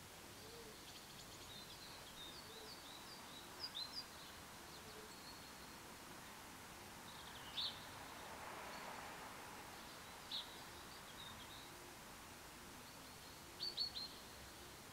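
Small birds giving short high chirps: a quick run of three about four seconds in, single calls midway, and another run of three near the end. Underneath is faint steady outdoor background noise that swells softly just past the middle.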